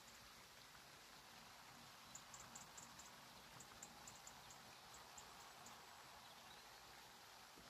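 Near silence: faint lakeside ambience with a few short runs of very high, quick ticks or chirps.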